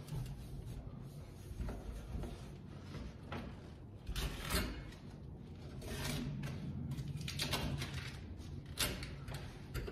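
A cloth rubbing over freshly soldered copper supply pipes, with light handling knocks against the pipes; the sharpest knocks come about four and a half seconds in and again near the end.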